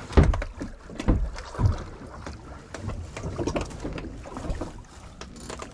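Dull thumps and knocks on a small fishing boat, three loud ones in the first two seconds, then smaller knocks over water and wind noise.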